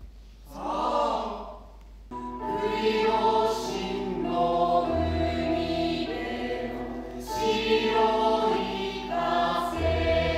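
Choir singing a slow hymn-like piece in long held chords, starting about two seconds in, with a deep low note sounding beneath it twice.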